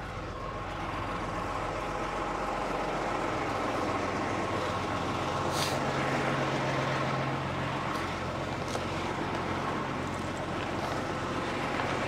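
Tractor engine running steadily at a low idle, with a few light clinks over it.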